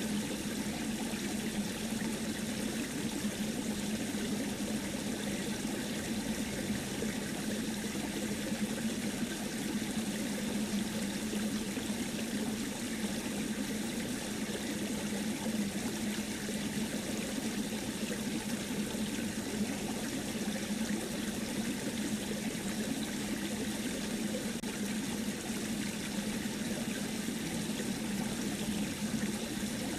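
Steady running water, like a trickling stream, unchanging throughout.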